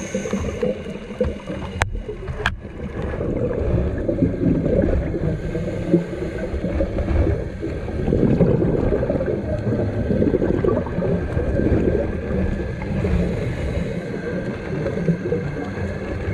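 Muffled underwater noise picked up through a camera's waterproof housing: a low, uneven rumble with gurgling water, and two sharp clicks about two seconds in.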